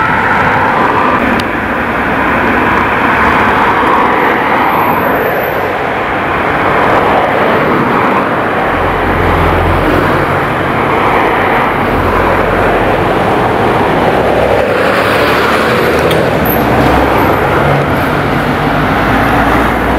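Loud city street traffic noise: vehicles driving past, with an engine rumble partway through. No siren is clearly heard.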